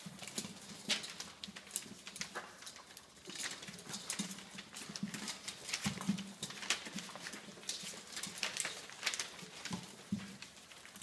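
Six-week-old Labradoodle puppies eating kibble from a stainless steel feeding saucer: a busy, irregular run of crunches and clicks, with paws shuffling on newspaper.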